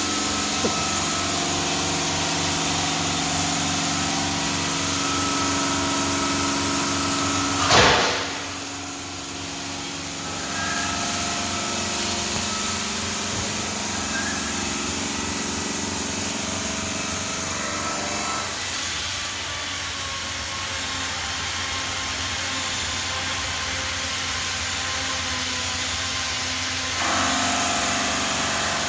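Denver 5-axis CNC bridge saw running steadily while cutting granite, a constant machine hum under a hiss. There is a brief loud burst about eight seconds in; the machine note drops after it, drops again around eighteen seconds, and steps back up near the end.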